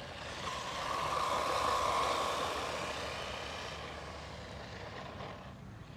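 1:16 scale RC Monster Buffalo truck's 390 brushed electric motor whining as it drives on pavement, with tyre and gear noise; it swells about one to two seconds in, then fades as the truck moves away.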